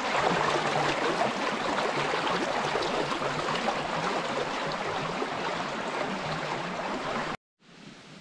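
A shallow forest stream running over rocks: a steady rush and splash of water that cuts off abruptly near the end.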